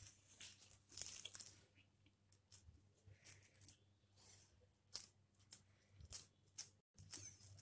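Faint, scattered scrapes and soft squishes of a metal spoon scooping spiced potato stuffing and pressing it into a halved green bell pepper.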